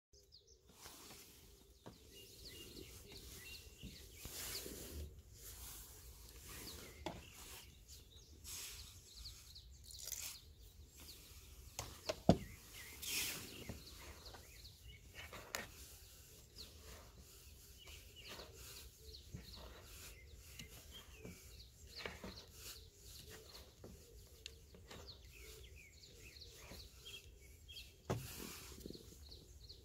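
Faint outdoor ambience with scattered bird chirps and a few soft knocks and clicks, the loudest a sharp click about twelve seconds in.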